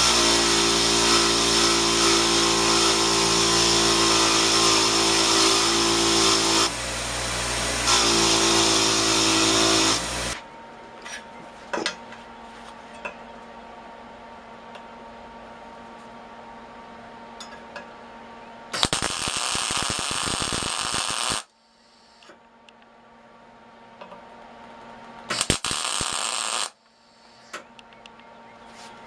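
Delta 6-inch bench grinder running with steel pressed against the wheel for about ten seconds, the grinding easing for a moment partway; then, after a quiet pause, two wire-feed welding tacks fixing the new piece to the kickstand, the first about two and a half seconds long and the second, shorter one near the end.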